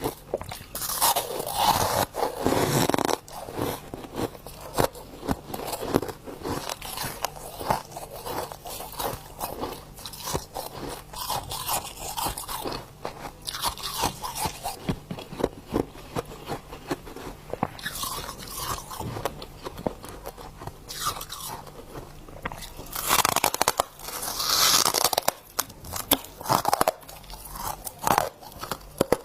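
A person biting and chewing crunchy humidifier frost: a run of crackly crunches with chewing in between, with louder bites near the start and again about two-thirds of the way through.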